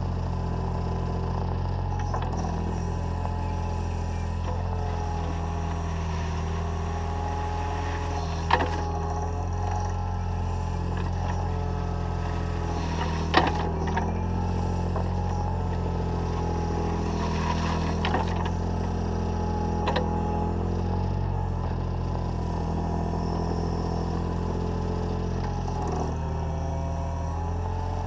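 Takeuchi TB014 mini excavator's diesel engine running steadily, with a hydraulic whine that shifts in pitch as the arm and bucket work gravel on a path. Two sharp knocks stand out, about a third of the way in and about halfway through, with a few lighter clicks later.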